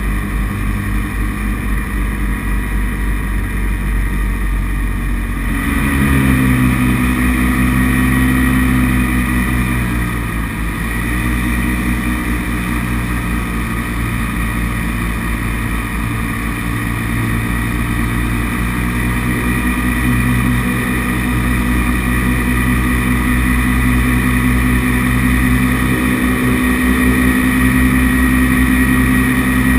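Paramotor engine and propeller running loud and close, heard from on board. The engine note rises about six seconds in and then holds fairly steady, with small changes in pitch.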